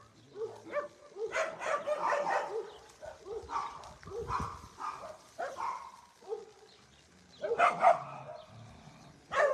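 Dogs barking at play: many short barks in quick succession, with a brief lull about two-thirds of the way through.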